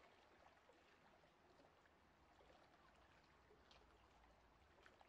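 Near silence: a faint even hiss with a few scattered tiny clicks.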